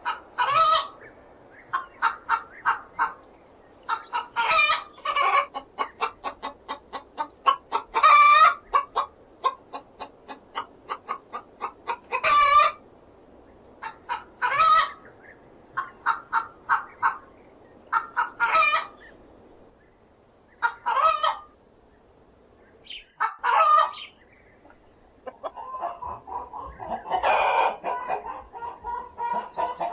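Hen cackling: runs of short, quick clucks broken every few seconds by a longer drawn-out squawk. Near the end the calls run together into a denser stretch.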